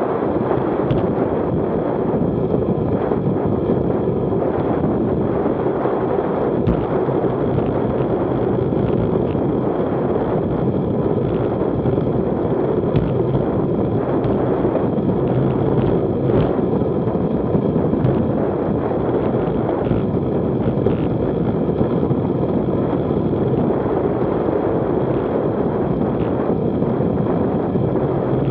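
Wind buffeting the microphone of a camera on a bicycle descending fast, a steady rush mixed with tyre noise on the asphalt and a few faint knocks.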